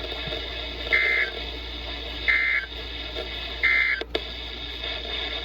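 Three short warbling data bursts from a NOAA Weather Radio broadcast, about a second and a third apart, over steady radio hiss. They are the EAS/SAME end-of-message code that closes the required weekly test. A sharp click comes just after the third burst.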